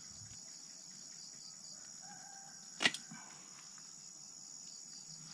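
Steady high-pitched insect chirring, with one sharp click about three seconds in.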